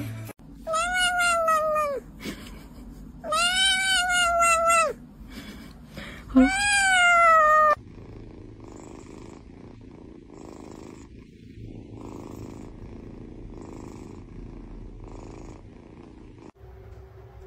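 A Bengal cat giving three long, loud meows, each rising then falling in pitch. Then a kitten makes a quieter breathy sound that comes roughly once a second.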